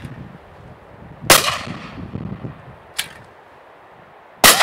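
A shotgun fired at a flying clay pigeon: one loud, sharp report near the end. About three seconds earlier comes another loud, sharp crack with a long ringing tail, and a fainter click falls between the two.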